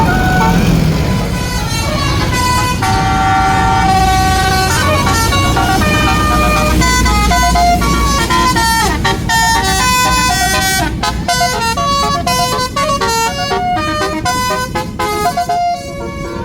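Tour bus basuri horn playing a tune in held, stepped notes, which turn into a fast run of short notes in the second half, over the steady rumble of the bus engine.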